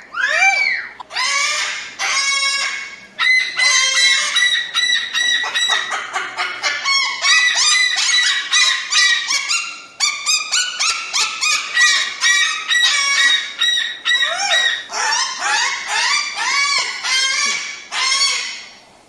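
Cockatoo calling: a long, fast run of loud, shrill, harsh calls that bend up and down in pitch, one after another with only brief pauses.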